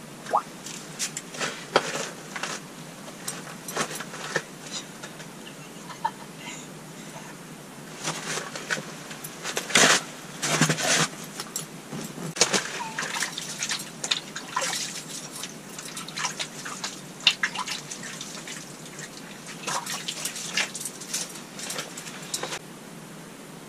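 Handling sounds of a freshly caught whitefish and ice-fishing gear: an irregular string of clicks, knocks and rustles with some dripping and splashing water, busiest about halfway through and stopping just before the end.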